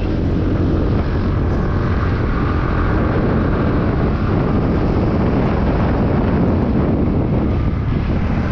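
Steady wind rush and rumble on the microphone of a moving scooter, with its engine and road noise underneath.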